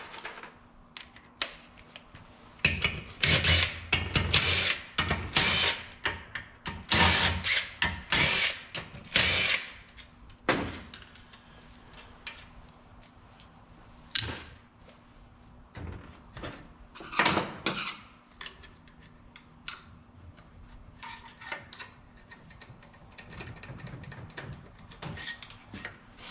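Cordless power driver run in a series of short trigger bursts, many in quick succession and then a few spaced out, working fasteners on a transmission.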